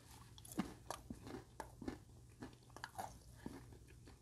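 Mouth chewing a crisp freeze-dried oyster: a run of faint, irregular crunches, about two or three a second.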